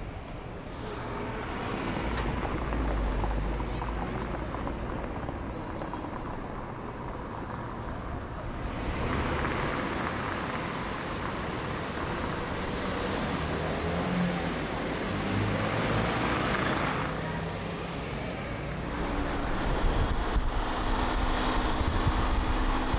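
Fiat 500 TwinAir's two-cylinder engine running as the car drives along, mixed with tyre and road noise and passing traffic. The sound changes character several times, about 9, 16 and 19 seconds in.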